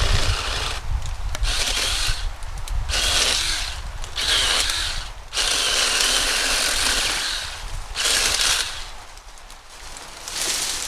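Small battery-powered 6-inch mini chainsaw running in a series of short bursts of one to two seconds, its electric motor and chain whirring as it cuts through brush, stopping and starting between cuts.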